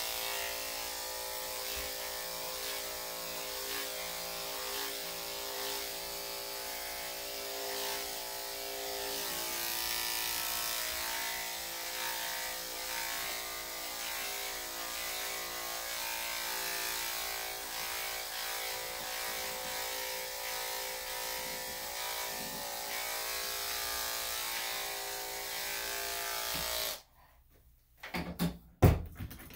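Electric dog grooming clippers running steadily as they trim a damp dog's coat, a constant motor hum that cuts off suddenly near the end when they are switched off. A few sharp clicks follow.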